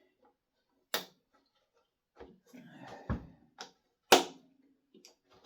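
Irregular clicks and knocks of hard plastic parts being handled as the throttle trigger and its spring are fitted back into an Echo leaf blower's handle. The sharpest click comes a little after four seconds in.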